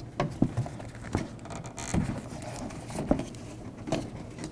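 Handling noises from working on a car door's inner insulation and sealer sheet: a scattering of light knocks and rustles as it is fitted and pressed into place.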